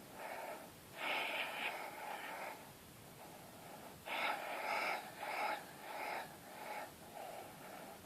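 A person breathing very deeply with the throat held wide open, so each breath sounds in the throat. A short breath, a longer one about a second in, a pause, then a quick run of short breaths, about two a second, from about four seconds in.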